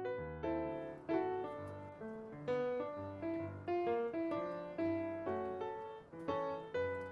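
Background music: a gentle piano tune, with a steady run of notes about two a second over low bass notes.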